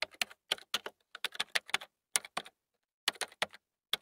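Typing on a computer keyboard: quick runs of key clicks, with a short pause a little past halfway.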